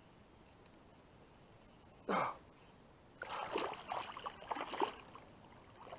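Water splashing in a run of bursts for under two seconds as a large hooked smallmouth bass thrashes at the surface beside the kayak, after one short, sharp, louder sound about two seconds in.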